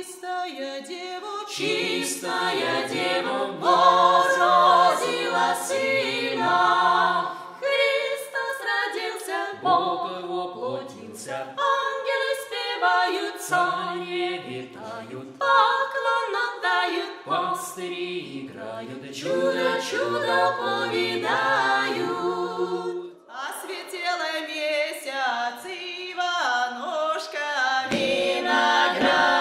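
A small ensemble of women's and men's voices singing unaccompanied in full-voiced traditional Slavic folk style, phrase after phrase with short breaths between.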